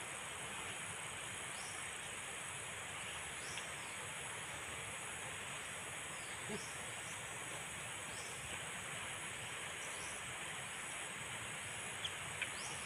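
Steady insect chorus with a constant hiss underneath and short high chirps repeating every second or so; a couple of faint clicks near the end.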